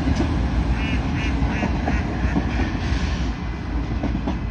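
A duck quacking four times in quick succession, over a steady low rumble.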